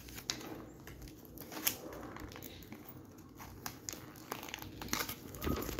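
Plastic packaging crinkling and rustling as small hands handle a toy mini backpack and its wrapped contents, with scattered light clicks.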